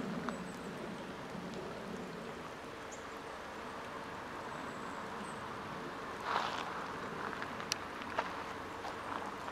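Steady outdoor ambience of a creek flowing under the bridge. A single scuffing step comes about six seconds in, followed by a couple of sharp clicks.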